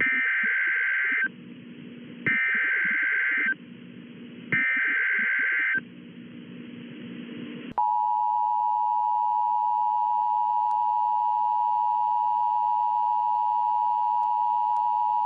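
Emergency Alert System broadcast tones announcing a severe thunderstorm warning. First come three bursts of SAME digital header data, each just over a second long with about a second between them. Then, after a short gap, the steady two-tone attention signal holds for about eight seconds.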